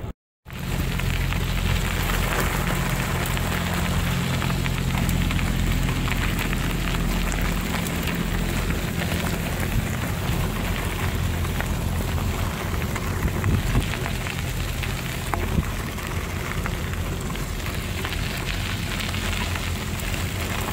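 Wind rushing and buffeting over the microphone while riding a bicycle, a steady noisy rush with a heavy low rumble. It cuts out for a moment just after the start.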